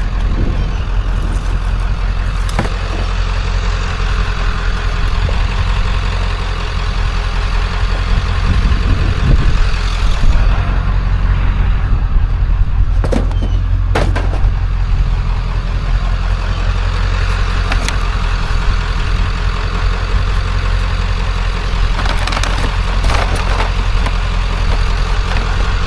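Vehicle engine running with a steady low drone, and a couple of sharp clicks about halfway through.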